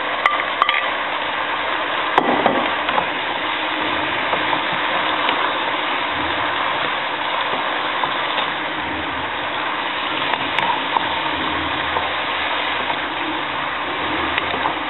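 Sliced cucumbers and beef sizzling steadily in a hot pan as a wooden spatula stirs them, with a few knocks and scrapes of the spatula near the start.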